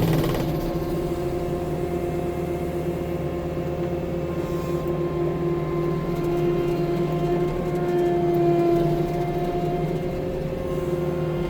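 An engine running steadily at a constant speed, an even hum with no change in pace.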